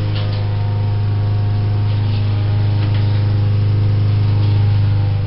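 Air compressor running steadily with a constant motor hum, pressurising the air cannon's chamber; a few faint clicks sound over it.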